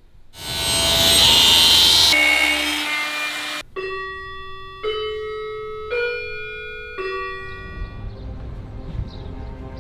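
A loud rushing noise for about three seconds, then a grandfather clock chiming four notes about a second apart, each left ringing. A low rumble builds near the end.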